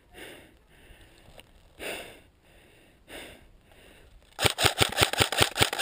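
Heavy breathing in three short puffs, then about three-quarters of the way in an airsoft gun starts firing a rapid full-auto burst of about ten sharp shots a second, the loudest sound.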